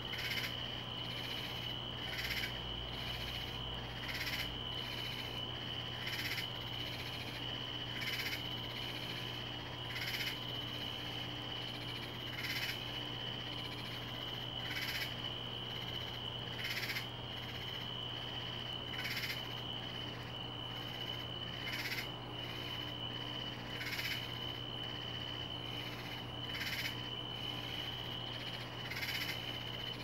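Backyard summer-night chorus: a steady high-pitched trill with a short raspy call repeating about once a second over it, and a low steady hum underneath.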